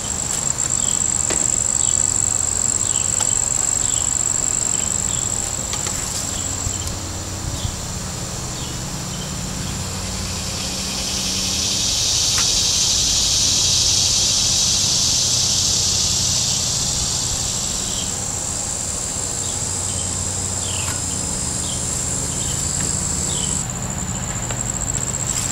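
Insects shrilling in a steady high thin tone. About ten seconds in, a louder buzzing swells up, holds for several seconds, then fades out.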